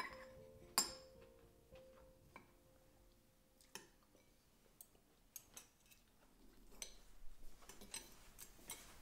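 Spoon clinking and scraping against a ceramic bowl while eating: scattered light clicks, the loudest just under a second in.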